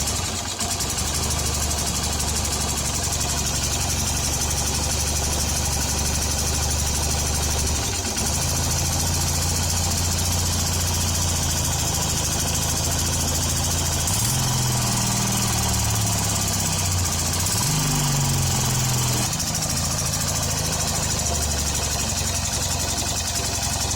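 Hero Honda CBZ Xtreme's 150 cc single-cylinder four-stroke engine running at a light fast idle with its tappet cover off, its tappets freshly adjusted, running smooth and clear. Its speed steps up about a third of the way in, it is blipped twice a little past the middle, and it settles back lower after that.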